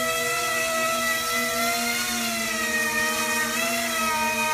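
Several motor-driven propellers of a small fixed-wing VTOL model aircraft whirring steadily as it hovers and flies, their pitch wavering slightly up and down.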